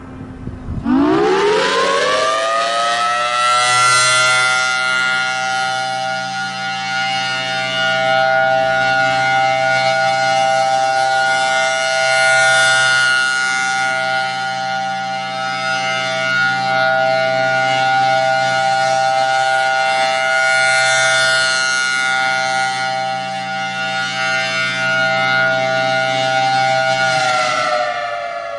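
Federal Signal Thunderbolt 1003 outdoor warning siren sounding the full-alert signal. It winds up in pitch from about a second in, holds a loud steady tone, and begins winding down near the end.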